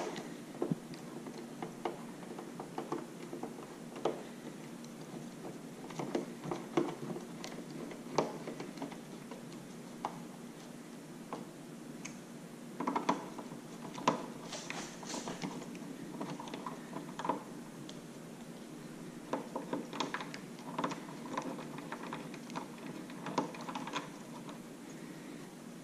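Scattered light clicks, taps and small knocks of parts and tools being handled on a workbench, coming irregularly and sometimes in quick clusters, over a faint steady hum.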